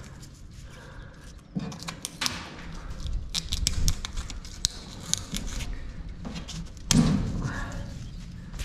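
Irregular light taps, clinks and scraping as rusty steel scraps are handled and picked from the edge of a cut-out opening in a steel cabin top, with a heavier thud about seven seconds in.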